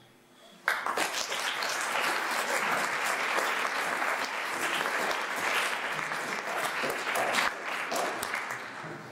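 Audience applauding, breaking out suddenly under a second in and dying away near the end.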